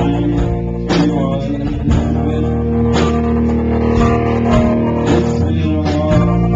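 Live indie-folk band playing: a man singing over electric guitar and a low, steady bass, with a beat struck roughly once a second.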